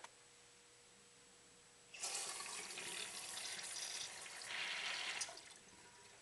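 Eljer urinal flushing: a rush of water starts suddenly about two seconds in, runs steadily for about three seconds, then tapers off and stops.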